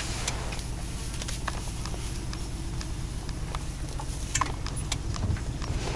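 Lion feeding on a zebra carcass: scattered, irregular crunches and tearing sounds over a steady low rumble.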